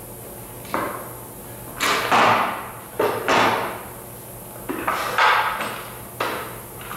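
Handling noises: a string of about six knocks and clunks, each trailing off briefly, as objects are moved and set down.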